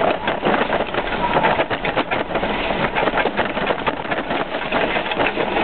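Remote-control lawnmower running and driving over rough, cut ground, heard from a camera fixed to its front: a dense, irregular clatter and rattle.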